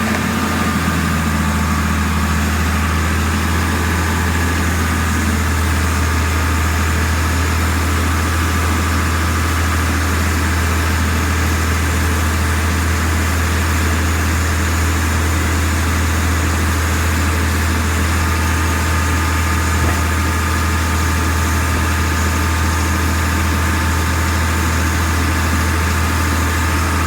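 Venturi-powered industrial vacuum system running steadily: a loud, even, low machine drone with a constant hiss over it.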